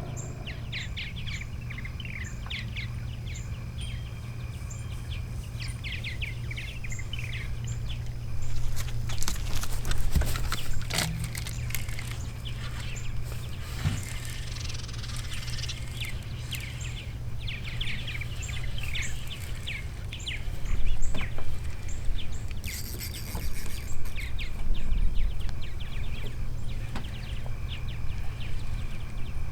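Small birds chirping repeatedly over a steady low hum, with a few louder noisy stretches.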